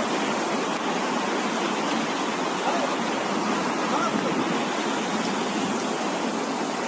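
Floodwater rushing steadily, a continuous wash of flowing water.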